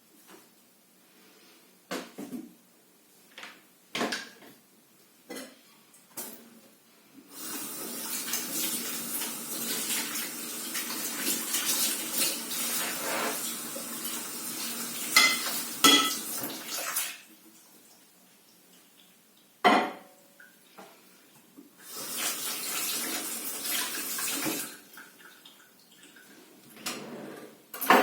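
Kitchen tap running into a sink in two spells, a long one of about ten seconds and a shorter one later, with knocks and clinks of dishes and utensils between and during them.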